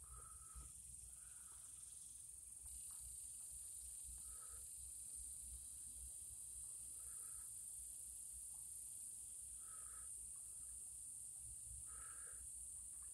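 Faint, steady, high-pitched insect trilling that gets a little louder about two and a half seconds in. A short, lower call repeats every few seconds over it.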